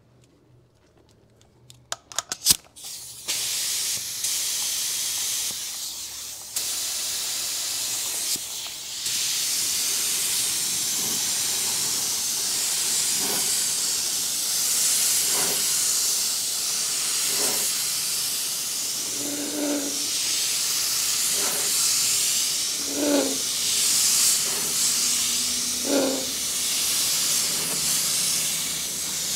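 Compressed-air gravity-feed spray gun spraying etch primer onto bare metal. A few clicks about two seconds in, then a steady hiss of air and atomised primer.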